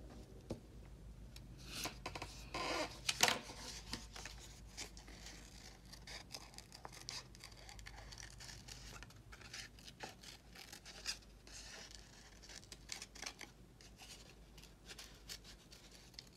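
Scissors cutting out a small shape from construction paper: a run of short snips mixed with paper rustling as the sheet is turned. A louder rustle of paper being handled comes about two to three seconds in.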